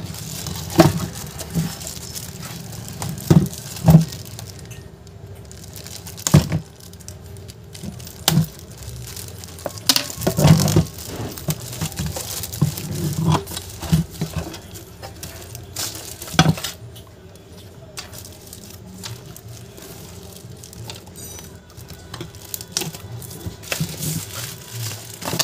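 Clear plastic wrap being crinkled, pulled and torn off a cardboard box by hand: irregular crackling rustles, with louder crackles now and then.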